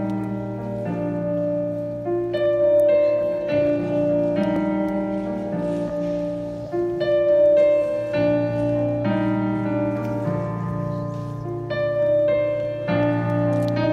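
Recorded piano music played over a theatre's speakers: a slow melody over held chords, the notes changing about once a second.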